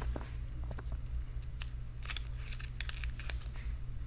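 Plastic blind-bag toy packaging crinkling and crackling in the hands as it is unwrapped, a scatter of short sharp crackles and clicks, over a steady low hum.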